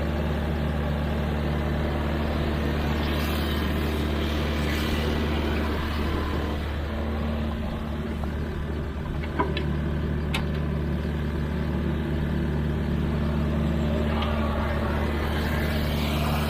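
Sany mini excavator's diesel engine running steadily. About nine seconds in there is a single sharp knock, followed by a brief high squeak.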